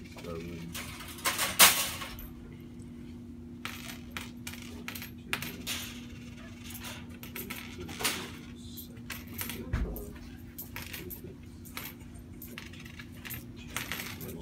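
Coins clinking and clattering as a handful of change is sorted and counted out by hand, in irregular short clicks with a louder clatter about a second and a half in. A steady low hum runs underneath.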